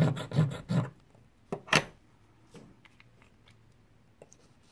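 A one-ounce copper piece scraped back and forth on a black touchstone, about three to four strokes a second, leaving a streak for an acid test. The strokes stop about a second in. A sharp click follows, the loudest sound, then a few faint small clicks.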